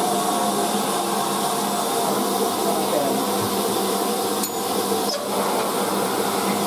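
Steady hiss of steam with a low hum in the cab of a BR Standard Class 5 steam locomotive; two faint clicks come midway.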